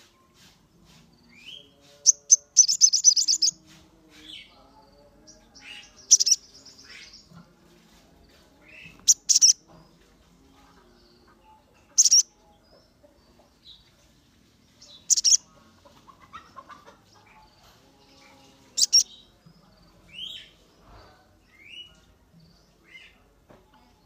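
Sogon sunbird calling: sharp, high chirps about every three seconds, with a longer rapid chatter a couple of seconds in and fainter short rising notes between them.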